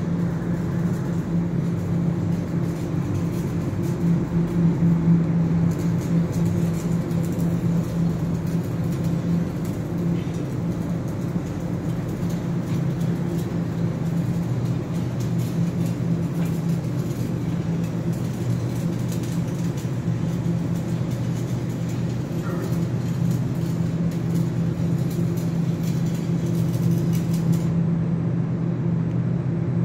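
Steady low machine hum that holds the same pitch throughout.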